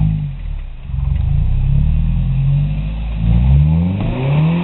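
Lifted off-road pickup truck's engine revving under load as it crawls up a rock ledge, its pitch rising in two surges in the second half.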